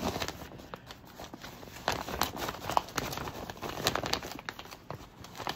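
Plastic packaging crinkling and rustling as cross-stitch kits are handled, with irregular light clicks and taps.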